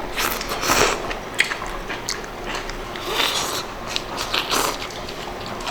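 A person biting and chewing food at the table, in irregular short crunchy bursts.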